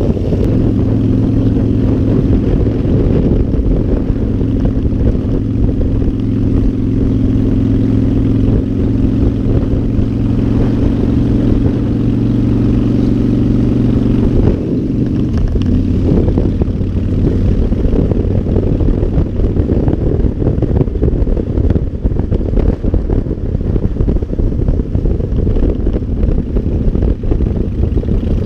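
Motorcycle engine running at a steady road speed under a dense rush of wind noise. About halfway through the engine note drops to a lower pitch and stays there.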